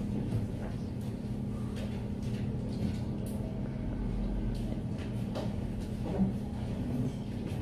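Study cafe room ambience: a steady low hum with scattered faint clicks and small knocks, one slightly sharper knock about six seconds in.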